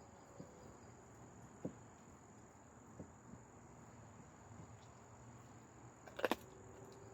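Dog chewing on half a chicken: a few soft crunches, then a quick cluster of louder crunches about six seconds in, over a steady high cricket-like drone.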